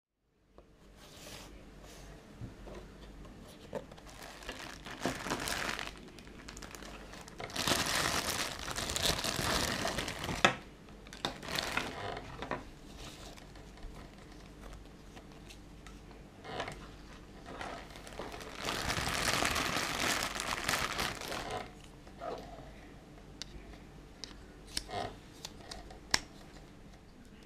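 Plastic packaging crinkling and rustling as a small camera and its accessories are unpacked by hand, in two longer stretches about a third and two-thirds of the way through, with short rustles and scattered clicks and knocks between.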